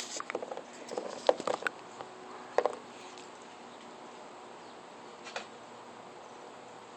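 Dog hiccuping: short, sharp hiccups, several in the first couple of seconds, a loud one about two and a half seconds in and a fainter last one after five seconds, then they stop.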